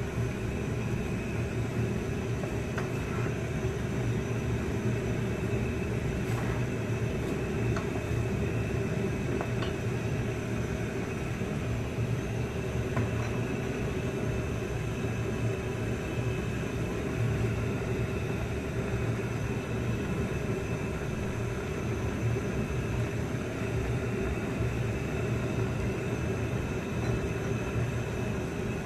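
Steady machine-like hum and rumble, with a few faint knocks of a wooden spoon against a steel pot.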